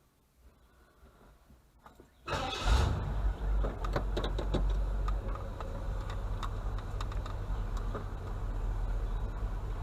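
A vehicle engine starting: a few faint clicks, then about two seconds in a brief loud burst as it catches, after which it runs at a steady idle.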